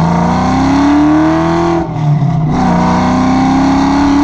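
Car engine accelerating hard, its pitch climbing, with a quick gear change just under two seconds in before it pulls and climbs again.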